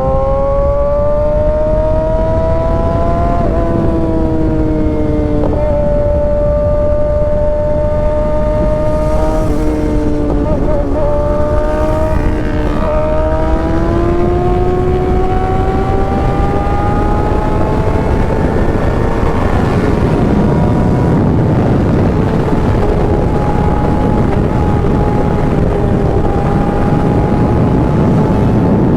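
Kawasaki ZX-6R's inline-four engine pulling at road speed, its pitch dropping sharply about three and a half seconds in, then climbing steadily as it revs through a gear. In the second half a broad rush of wind and road noise grows louder than the engine's note.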